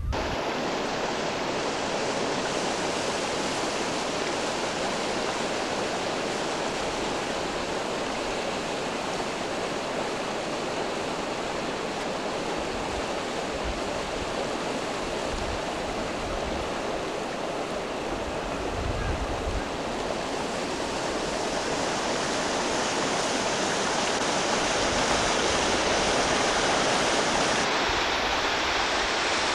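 Water rushing over rocks in a small cascade, a steady rush that grows a little louder in the last several seconds.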